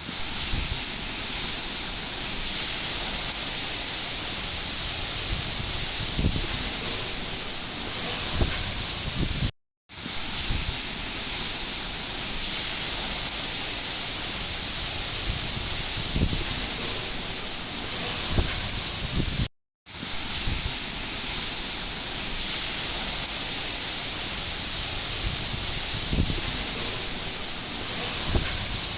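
Steady heavy rain hiss with a few soft low thuds. It cuts out to silence for a moment twice, about ten seconds apart, where the rain loop restarts.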